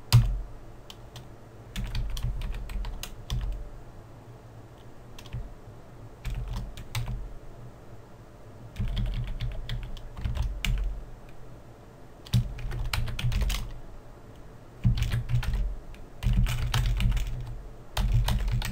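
Typing on a computer keyboard in several short bursts of keystrokes with pauses between them.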